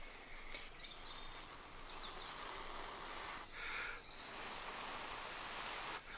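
Breath blown into a smouldering tinder bundle holding burning horse's hoof fungus, a soft rushing hiss that swells into a stronger blow about three and a half seconds in, as the tinder is coaxed toward flame. Faint bird chirps sound in the background.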